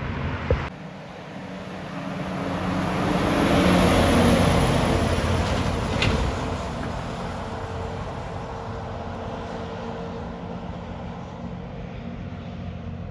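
Semi-trailer truck's diesel engine and tyres going by, growing louder as it passes and fading as it drives away round the bend. A short sharp click about six seconds in.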